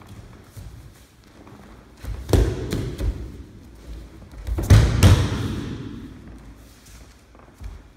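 A person thrown in aikido breakfalling onto padded tatami mats: two heavy thuds, about two and a half seconds in and just under five seconds in, each followed by a short rustle as the body rolls out. The second fall is the louder.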